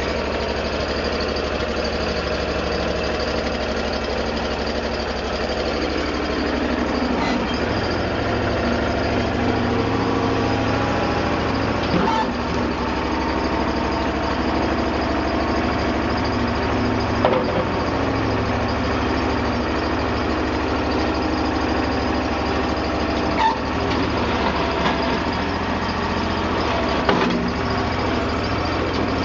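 Honda engine of a 1998 Terramite T5C compact backhoe running steadily at an even speed, with a few brief clunks or clicks over it.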